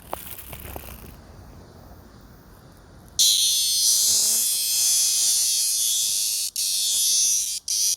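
Captured blackish cicada (Cryptotympana atrata) giving its harsh, high buzzing call, loud and even, starting about three seconds in and breaking off twice briefly near the end.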